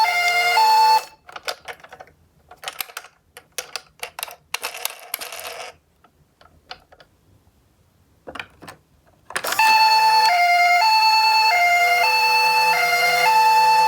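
Two-tone Japanese ambulance siren alternating between two notes (pee-po), cutting off about a second in. Then several seconds of clicking and rattling as die-cast ambulance minicars roll and clatter down a toy slope, a few more clicks, and the siren starts again about nine seconds in.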